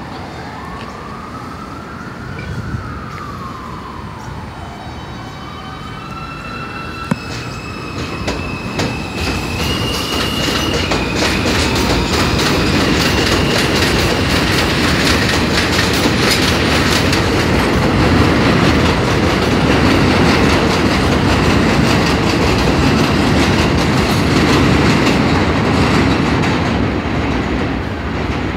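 A siren wails up and down for the first several seconds. Then an R160A-1 subway train's propulsion whines in steps rising in pitch as it pulls out, and the passing cars go by loudly with rapid clicking of wheels over the rail joints, fading near the end.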